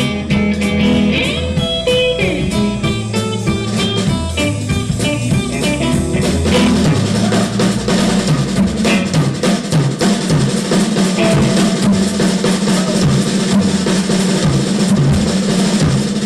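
A live blues-rock band playing: electric guitar lines over a drum kit. About six seconds in, the drumming gets busier and denser while the guitar notes recede.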